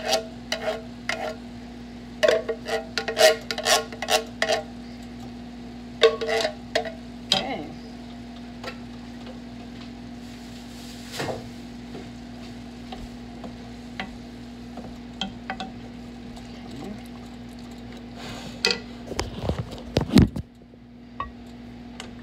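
An emptied tomato sauce can knocked again and again against a stainless steel skillet to shake out the last of the sauce: bursts of quick, ringing metallic clinks over the first seven seconds, then only scattered ticks. A steady low hum runs underneath, and a couple of louder knocks come near the end.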